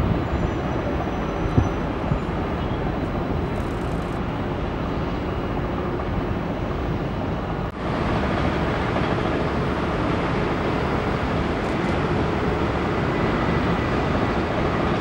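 Steady rumble of jet airliners landing: an Airbus A330 touching down and rolling out. After a sudden cut about eight seconds in, the rumble is of an Airbus A320 on final approach, slightly louder.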